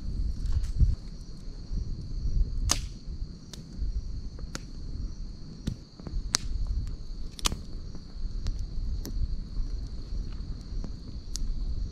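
Campfire crackling, with sharp pops every second or so and a low rumble underneath, over a steady high chirring of insects.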